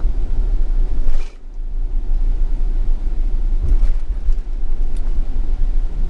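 A camper van driving on a wet road, heard from inside the cab: a steady low rumble of engine and road noise with the hiss of tyres on the wet surface, dipping briefly about a second in.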